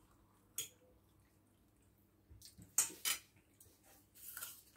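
Cutlery clinking against ceramic plates as food is picked at: a few sharp clicks, the loudest a pair about three seconds in, then a brief rustle near the end.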